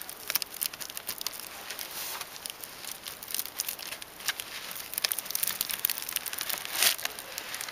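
Plastic sheeting crinkling and a polystyrene insulation board on a beehive scraping and creaking as a hive tool pries it up, many small crackles with a louder one about seven seconds in.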